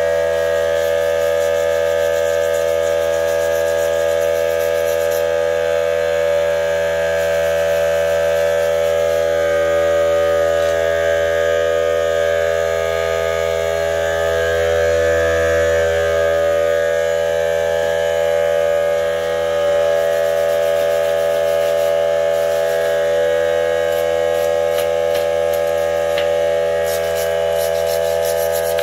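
A steady hum made of several fixed pitches that hold unchanged throughout. Faint scrapes come in near the end as a wooden scraper works the softened paint on the engine block.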